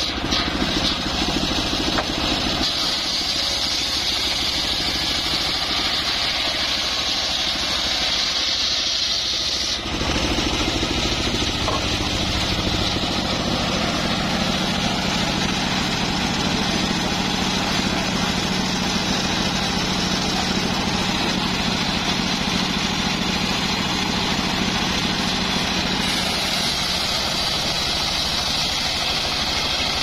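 The engine of a homemade circular sawmill runs steadily throughout. For the first ten seconds or so the blade is cutting a white teak (gmelina) log lengthwise, adding a high, steady whine. The whine stops and the engine runs on its own, then the cutting starts again near the end.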